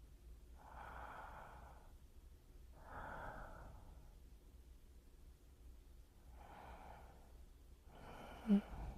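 Close-miked binaural breathing: four slow, separate breaths, each about a second long. Near the end a short, sharp mouth sound is the loudest moment.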